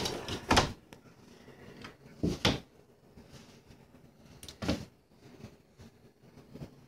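A cat playing with a cord on a tiled floor: a few short scuffs and bumps, one about half a second in, two close together around two and a half seconds, and one near five seconds, with quiet between.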